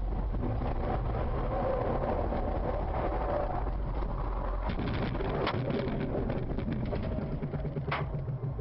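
Car driving, steady engine and road noise with a low rumble that eases a little past the middle, and two sharp clicks, one past halfway and one near the end.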